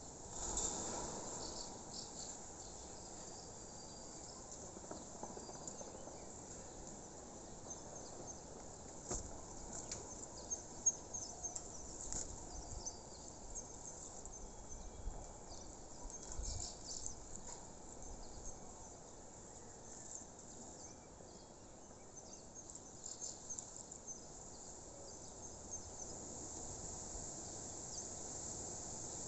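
Steady high-pitched chorus of crickets with scattered short bird chirps and a few brief clicks, busiest in the middle.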